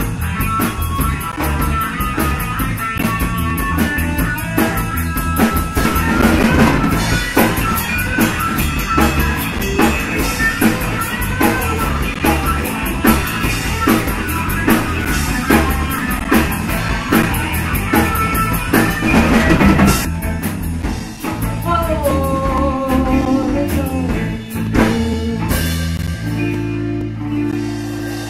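Live rock band playing: electric guitar, bass and drum kit. About twenty seconds in the drumming thins out and held guitar notes come forward.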